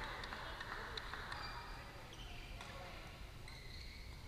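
Badminton rallies on several courts in a large hall: scattered sharp clicks of rackets striking shuttlecocks and short high squeaks of court shoes on the mats, over a faint murmur of voices.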